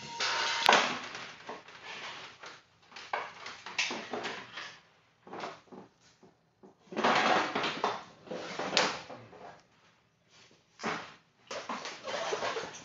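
Irregular clunks, knocks and scrapes of hands and tools working on a new Honda TRX420 ATV and its steel shipping-crate frame during uncrating. There is a sharp click shortly after the start and a longer clatter about seven to nine seconds in.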